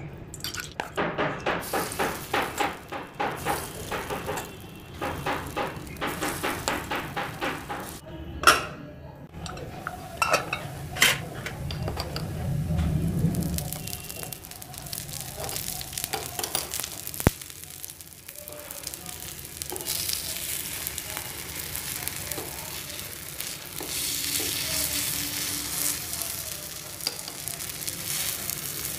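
Oil and appam batter sizzling in a multi-cup appe pan on a gas burner. Over the first several seconds there is a fast run of rhythmic scrapes or taps, and after that a few sharp metal clinks of a spoon and fork against the pan as the appams are turned. A steady frying hiss grows stronger near the end.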